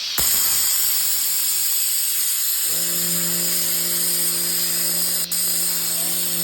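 Compressed-air blow gun hissing continuously as it blasts dirt away from an ATV's oil fill and drain plug area, with a brief break about five seconds in. A steady hum starts underneath about two and a half seconds in.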